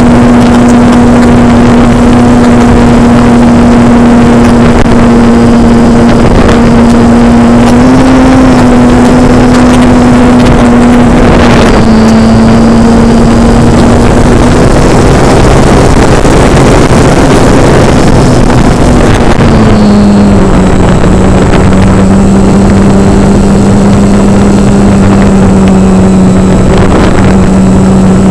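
Model airplane's motor and propeller running with a steady hum under heavy wind rush. The pitch steps down about twenty seconds in and then holds.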